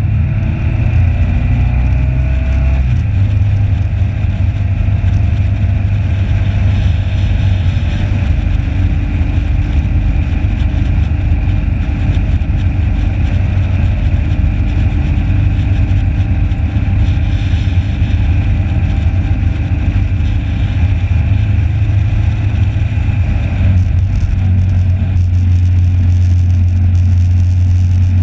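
Motorcycle engine running steadily at track speed, heard from onboard the bike. The engine note changes about three seconds in and again near the end.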